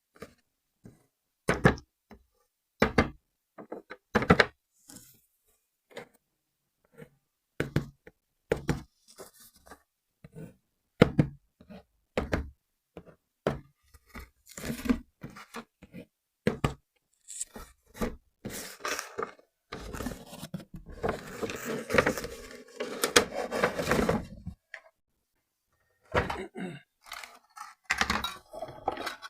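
Plastic and cardboard knocks, thunks and scrapes as a radio-controlled toy car and its packaging are handled. There are many separate knocks, with a denser run of scraping and rustling from about two-thirds of the way in.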